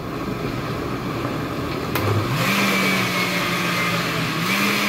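Oster countertop blender puréeing a liquid chile sauce: a click about two seconds in, then the motor spins up to a steady hum with a high whine, stepping up slightly in pitch near the end.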